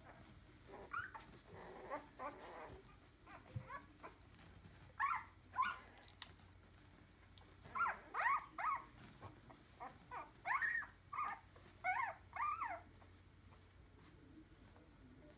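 Week-old Entlebucher Mountain Dog puppies giving short, high squeaky cries, newborn-puppy calls that come in clusters of two or three with short gaps between them.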